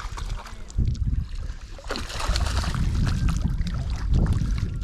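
Wind buffeting the microphone, an uneven low rumble, joined by a rushing hiss from about two seconds in.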